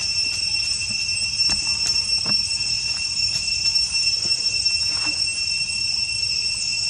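Steady, high-pitched drone of a chorus of insects, holding two pitches without a break, with a few faint clicks scattered through it.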